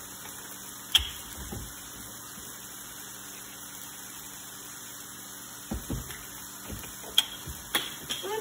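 Milk carton handled over a wooden cutting board: a sharp click about a second in as the cap comes off, then a cluster of soft knocks and clicks near the end as the carton is set down, over a steady low hum.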